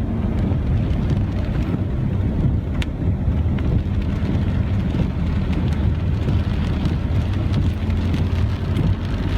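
Vehicle driving along a flooded road: a steady low engine drone under a constant rushing noise.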